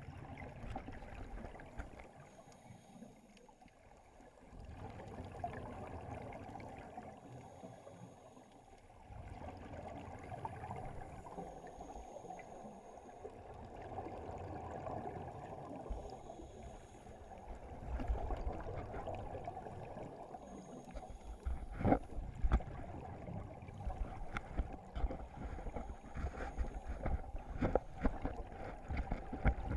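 Muffled underwater ambience of a scuba dive: divers' exhaled bubbles gurgling up from their regulators over a low rumble. In the last third, sharp clicks and knocks come in.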